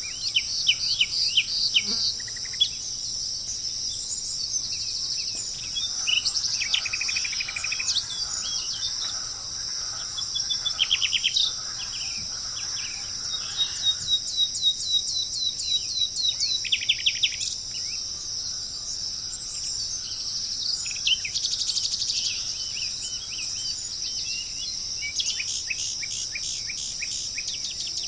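Birds chirping and trilling in short repeated phrases over a steady high-pitched chorus of insects.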